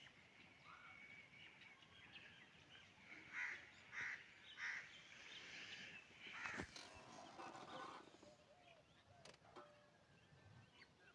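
Faint outdoor birdsong: one bird gives three loud, harsh calls about half a second apart, among scattered smaller chirps.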